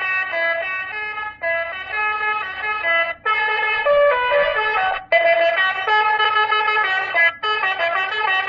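Basuri telolet horn module, 60-watt, sounding through a horn. It plays a quick melody of stepping tones in several phrases, with short breaks between them.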